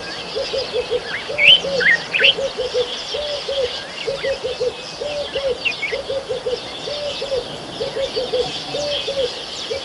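Birds calling: a low cooing call repeats without a break in alternating groups of two and three short notes, about one group every three-quarters of a second. Over it, other birds chirp and twitter at a higher pitch, loudest about two seconds in.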